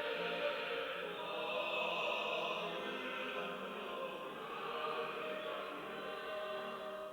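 Church choir singing a Sunday anthem, the voices holding long notes.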